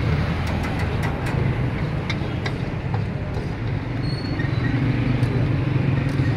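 Steady low engine-like rumble with a noisy background, broken by scattered light metallic clicks of tongs and a spatula on a flat steel griddle and wok.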